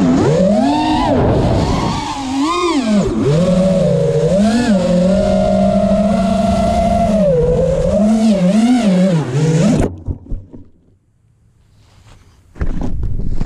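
Brushless motors of an FPV racing quadcopter (Cobra Champion 2207 2450kv on 4S, DAL Cyclone 5-inch props) whining, the pitch rising and falling with throttle as it flies. The whine cuts off suddenly about ten seconds in as the quad comes down in the grass; after a short near-silent pause, a burst of rustling near the end.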